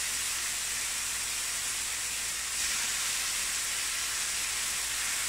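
Chicken breast fillets sizzling as they fry in hot clarified butter (Butterschmalz) in a frying pan: a steady hiss, a little louder about two and a half seconds in.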